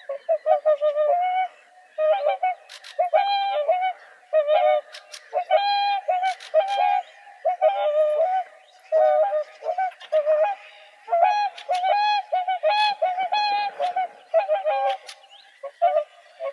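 Swans calling: a run of short, pitched honking calls, several in quick succession, in clusters with brief pauses between them.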